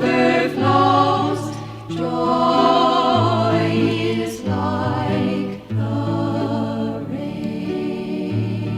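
A women's choir singing a folk hymn over guitar accompaniment, the singing giving way to long held notes of the closing chord from about six seconds in.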